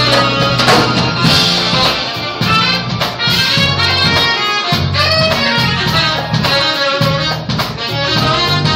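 Live jazz band playing: a saxophone carries the melody over keyboard, a bass line and drums.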